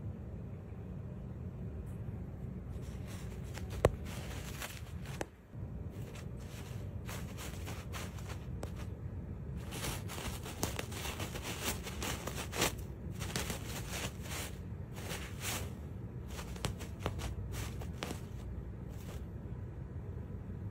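Brown paper napkins crinkling and tearing in irregular bursts as a cat pounces on them and claws at them, over a low steady hum. A single sharp click sounds about four seconds in.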